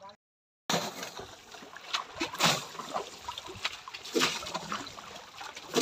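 Water splashing in irregular bursts as buckets are scooped from shallow water and thrown, with people wading. The sound cuts out for about half a second at the very start.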